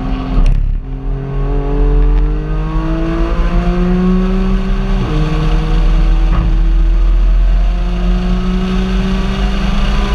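Car engine accelerating through the gears. Its pitch climbs slowly and drops at a gear change about half a second in and again about five seconds in, over a steady deep road rumble.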